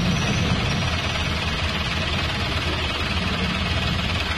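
Steady idling engines of vehicles stopped in a traffic jam, heard from inside an open auto-rickshaw: an even low rumble with no revving or horns.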